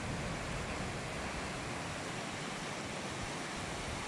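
Heavy downpour of rain, a steady dense hiss.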